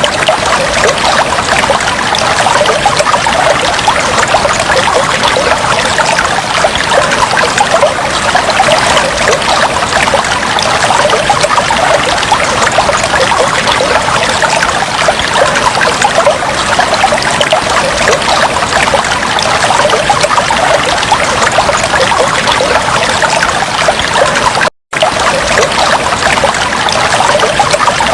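Steady trickling and gurgling of water in a fish tank, cut by a split-second gap of silence about three seconds before the end.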